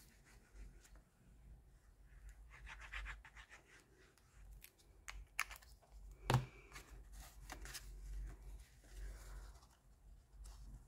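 Faint rustling and scraping of cardstock being handled and pressed down while a paper panel is glued on, with scattered small ticks and one light knock about six seconds in.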